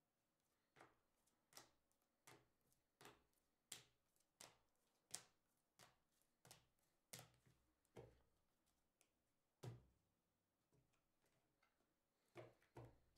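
Trading cards in rigid plastic top loaders clicking against one another as they are flipped one by one through a hand-held stack, faint and regular at about one click every two-thirds of a second. The clicks pause for a couple of seconds, then come as a quick pair near the end.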